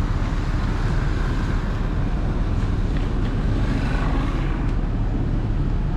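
Steady low rumble of a moving vehicle, with even, unbroken road and engine noise throughout.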